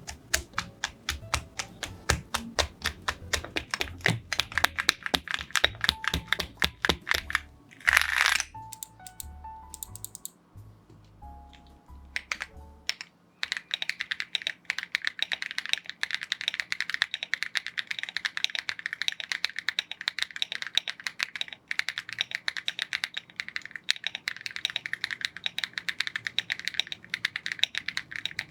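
Sharp clicks of mechanical keyboard switches being pushed into a Rainy75 keyboard's hot-swap sockets over background music, with one brief loud rustling burst about 8 s in. From about halfway on, the music stops and there is fast, continuous typing on AKKO V3 Cream Yellow linear switches in the Rainy75.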